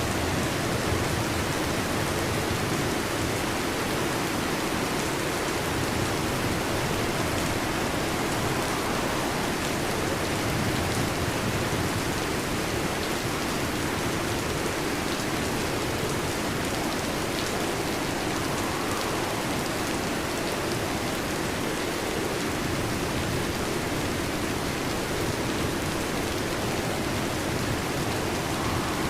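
Steady heavy rain falling, an even hiss that holds at the same level throughout.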